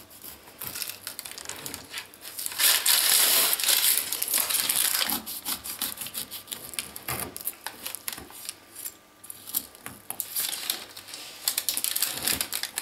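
Large kitchen knife cutting down through a baked streusel cake, its crisp crumb topping and crust crunching under the blade. The crunching is loudest about two to four seconds in and again near the end.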